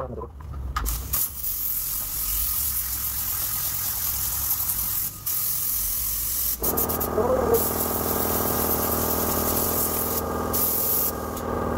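Pneumatic paint spray gun hissing as it sprays a coat of blue paint, with a few short breaks where the trigger is let off. About halfway through, a motor starts and runs with a steady hum underneath.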